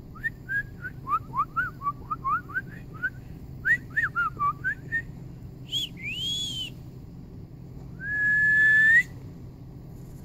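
A person whistling to call the dogs: a quick run of short chirpy notes, then one rising-and-falling whistle, then a long steady whistle that lifts in pitch at its end, the loudest of them.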